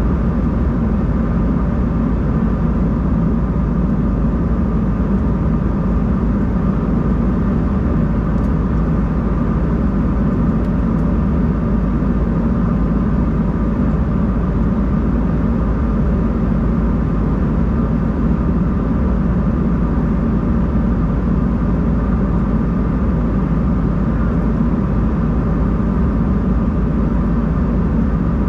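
Steady cabin drone of an Embraer 190-E2 airliner, the low rumble and hum of its Pratt & Whitney PW1900G geared turbofans and rushing air, unchanging throughout.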